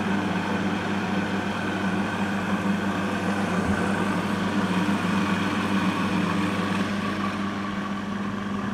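Electric food processor motor running with a steady hum, blending cooked chickpeas into hummus.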